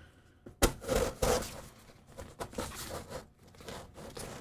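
Packing tape on a cardboard shipping box being slit with a blade and torn open: a sharp knock about half a second in, then irregular scraping and tearing.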